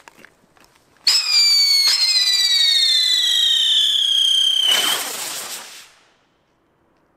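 Blackbox novelty firework whistling: a shrill whistle starts suddenly about a second in, and a second whistle joins a moment later. Both slide slowly downward in pitch for about three and a half seconds, then break into a hissing, crackling burst of sparks that fades over about a second.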